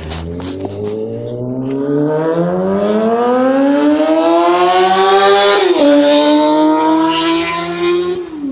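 A 2006 Honda CBR600RR's inline-four running with no exhaust fitted, loud and open, accelerating hard: the revs climb steadily for over five seconds, drop sharply at an upshift, climb again and drop once more near the end.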